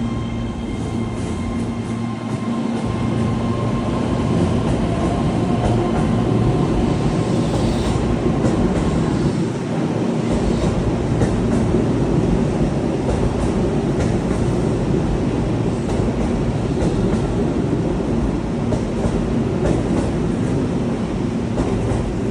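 Keihan Electric Railway train running: a loud, steady rumble of wheels and motors, with a few faint steady whine tones over the first several seconds that fade out.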